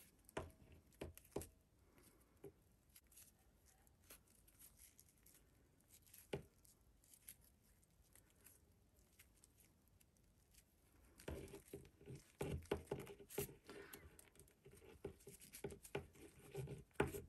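Faint rustling and rubbing of paper cord being handled, with a few soft clicks in the first seconds. From about eleven seconds in the rustling grows denser as the cord end is drawn through the wrapped handle with a plastic needle.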